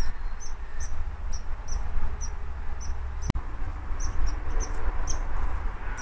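A squirrel scolding in alarm at an intruder: a string of short, high-pitched chirps, two or three a second, with a brief pause in the middle. One sharp click a little past three seconds in, over a low rumble.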